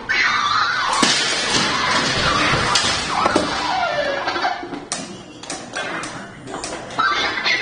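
A robot malfunctioning loudly: a jumble of knocks, thumps and crashes mixed with sweeping tones that rise and fall.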